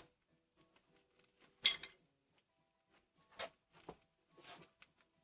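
A few brief knocks and scrapes of firewood being handled and laid into a wood-fired brick oven, the loudest about a second and a half in and three softer ones later.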